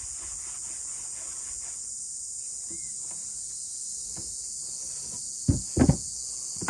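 Steady high-pitched chirring of an insect chorus, like crickets, with a cluster of dull knocks about five and a half seconds in.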